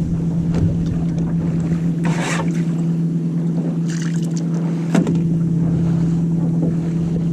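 Small sailboat under way: water rushing and wind buffeting the microphone, swelling twice, over a steady low hum. A short knock about five seconds in.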